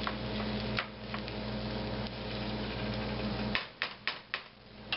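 Plastic spoon stirring and scraping egg and meat in a nonstick skillet, with several sharp clicks against the pan, four or five close together about three and a half seconds in. A steady low hum runs underneath and cuts out briefly near the end.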